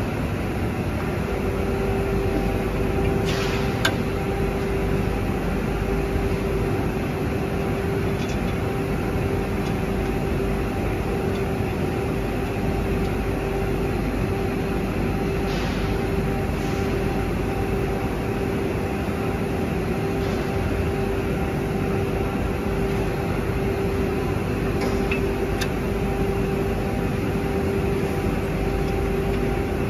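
Steady machinery drone of a factory workshop, a constant hum over a broad rushing noise, with a steady tone settling in about a second in. A few faint clicks stand out now and then.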